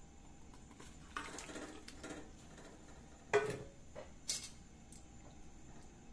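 Raw chicken pieces tipped from a metal bowl and splashing into spiced broth in a metal wok, then a sharp metallic knock about halfway through and a lighter one a second later, as metal utensils strike the pan.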